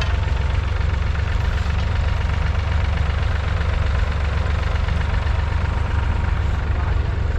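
David Brown 780's 2.7-litre three-cylinder diesel engine running steadily with an even, low rumble.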